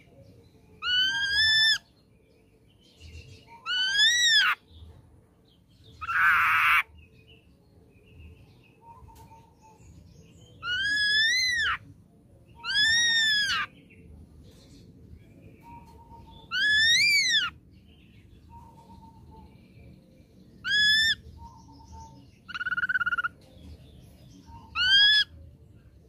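Ashy drongo calling: a series of loud whistled notes, each under a second and rising then falling in pitch, repeated every two to four seconds, with one harsh rasping call about six seconds in.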